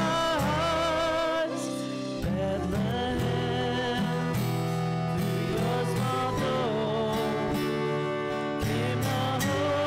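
Live worship band playing a song: a woman singing the melody into a handheld microphone over acoustic guitars and piano.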